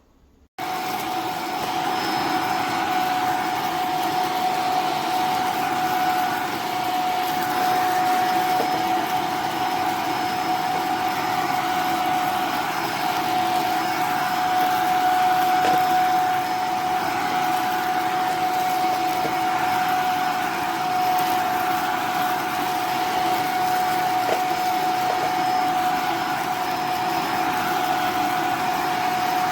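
iwoly V600 corded stick vacuum switched on about half a second in and running steadily, with a steady whine over the rush of its motor; the owner reports it has no suction and gets extremely hot where the motor is.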